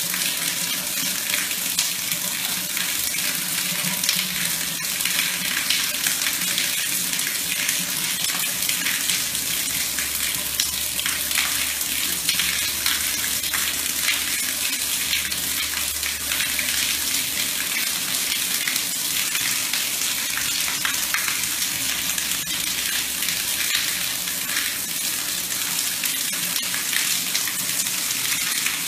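Shower running, its spray hissing steadily onto a tiled floor.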